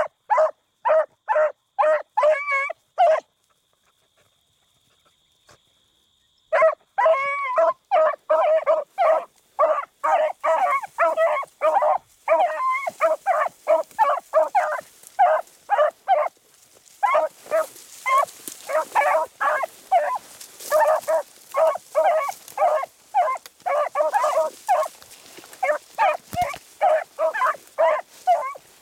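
Beagles baying while running a rabbit track, in short, rapid calls several a second. The calls stop for about three seconds near the start, then start again and carry on. Dry brush rustles faintly underneath from the middle on.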